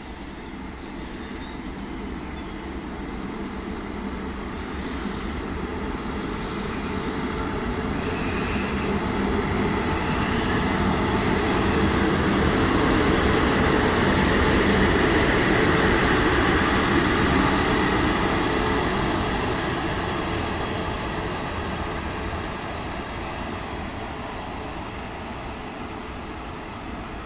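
Two DB class 143 electric locomotives coupled together and running light without a train, passing by. The rumble of wheels and running gear grows, is loudest about halfway through, then fades as they move away.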